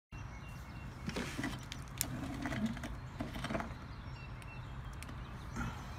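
Scattered light clicks and rustles over a low steady hum, with one sharper click about two seconds in.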